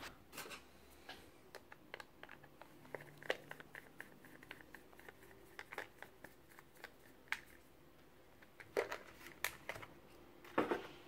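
Faint small clicks and ticks of a screwdriver working the screw out of a handheld meter's plastic battery cover, with a few louder plastic clicks and knocks near the end as the cover is lifted off.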